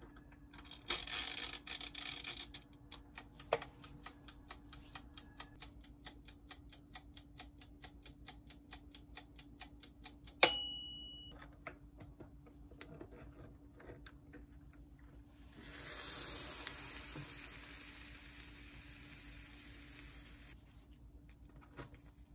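Mechanical wind-up timer on a waffle maker being turned with a short rasping ratchet, then ticking evenly at about four ticks a second until its bell strikes once, loud and ringing out, about ten seconds in. A steady hiss follows for about five seconds near the end.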